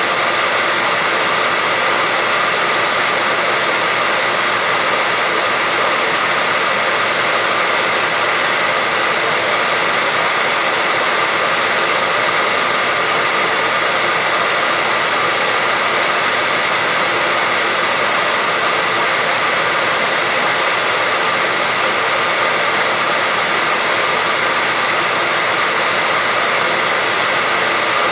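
Hair dryer running steadily, an unchanging rush of air with a faint motor whine.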